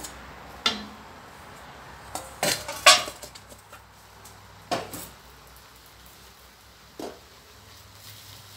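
Stainless steel bowl and spatula clanking against a stainless wok as wide rice noodles are tipped in: a string of sharp metal clanks, the loudest about three seconds in, with a last one about seven seconds in.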